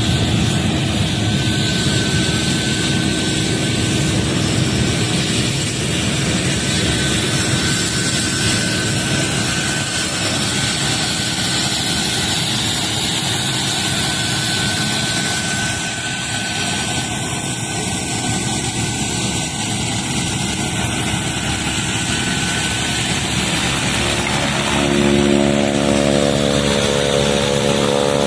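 Turboprop aircraft in flight, a steady loud propeller and engine noise. Near the end a strong propeller hum with a clear pitch comes in, and it starts to drop in pitch as the plane passes close by.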